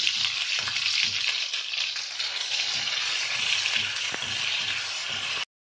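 Onion and ginger-garlic paste sizzling steadily in hot mustard oil in a steel kadhai while it is stirred with a perforated metal skimmer, frying until the paste releases its oil. The sizzle cuts off suddenly near the end.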